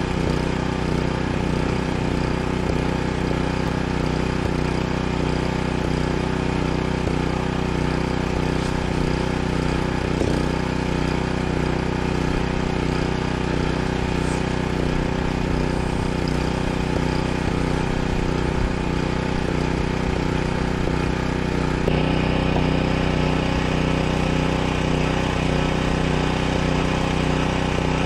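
Portable generator engine running steadily at a constant speed, an even drone with no change in load.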